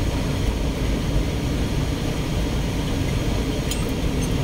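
Steady road and engine noise inside a moving car's cabin, with a couple of faint ticks near the end.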